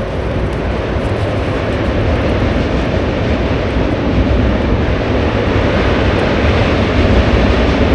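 A passing train: a loud, steady rumbling noise that grows slowly louder.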